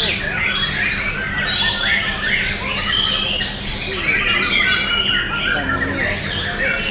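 Caged Oriental magpie-robin (kacer) singing a rapid, varied stream of whistles, trills and chattering notes, overlapped by other caged songbirds singing around it.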